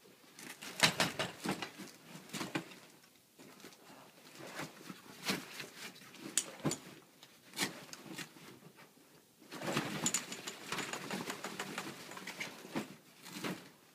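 Hands working the fabric deck and cockpit coaming of a Folbot Citibot folding kayak: rustling of the coated fabric skin with quick clicks and small knocks from the frame and rim. It comes in three spells of busy handling, about a second in, in the middle, and over the last few seconds.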